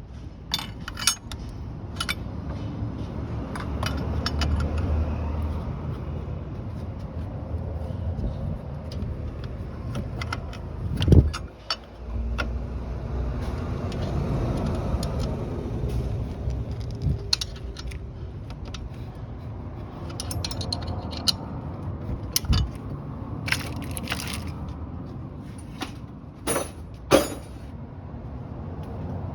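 Vehicle running with a steady low rumble, overlaid by many sharp rattles and knocks, the loudest about eleven seconds in and two more near the end.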